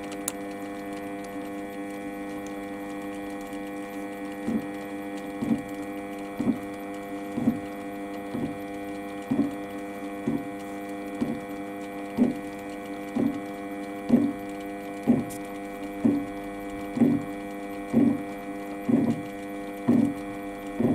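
Warco lathe running with a steady hum. From about four seconds in, a short bump comes about once a second and grows louder as the push tool's roller bearing is wound in and the out-of-true aluminium part strikes it once each turn, being pushed toward true.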